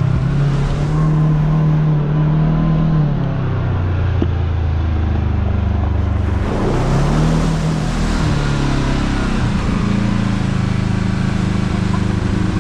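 Kawasaki KRX side-by-side's engine running while driving. Its pitch drops for a few seconds near the middle and then picks up again.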